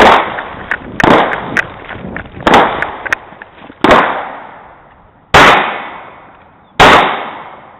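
Handgun shots during a shoot-and-move drill: six loud shots spaced about one to one and a half seconds apart, each trailing off in an echo, with a few fainter pops between them.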